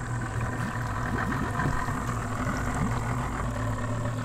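Small boat's outboard motor idling with a steady low hum.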